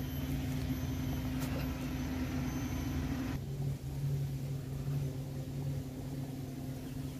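Daihatsu Xenia Xi's 1.3-litre four-cylinder engine idling, heard from inside the cabin as a steady low hum. About halfway through, the higher hiss drops away suddenly while the hum carries on.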